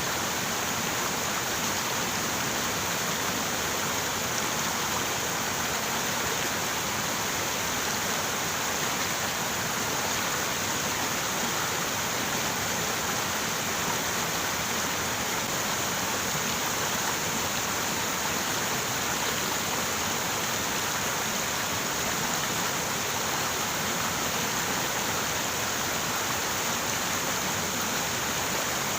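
River water running in a steady, unbroken flow.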